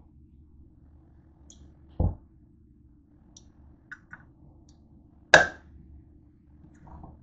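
A hand-held can opener being fitted onto a metal can on a countertop. There is a low thump about two seconds in, two light clicks around four seconds, and a sharp knock just past five seconds, which is the loudest sound.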